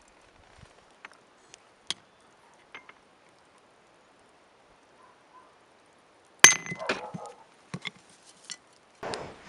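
Steel tools and stock being handled in a blacksmith's shop: scattered light metallic clinks, then one loud ringing clang of metal on metal about two-thirds of the way through, followed by a few more clinks. A rushing noise starts just before the end.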